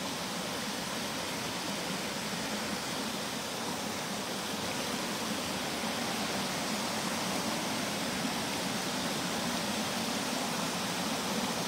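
Water pouring over a small concrete weir into a shallow channel: a steady, even rushing.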